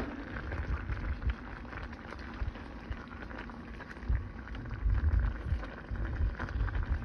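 A creamy pasta sauce with broccoli simmering in a pan, giving a steady bubbling crackle, while a spoon stirs it. Louder low bumps come about four to five and a half seconds in.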